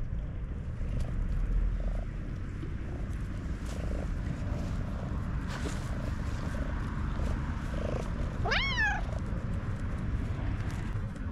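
Black cat purring steadily close to the microphone, with one short, high, kitten-like meow that rises sharply and falls away, about three-quarters of the way through.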